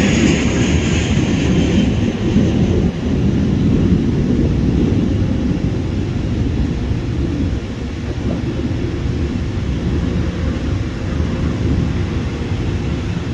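Jet airliner engines rumbling loudly, a higher hiss fading in the first second or two and leaving a deep, steady rumble that eases slightly toward the end.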